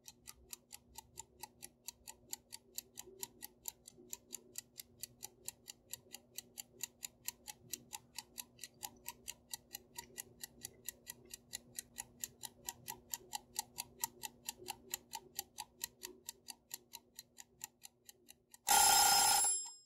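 Steady, regular mechanical ticking at about four clicks a second over a faint low hum. Near the end a loud burst of noise lasting about a second cuts in.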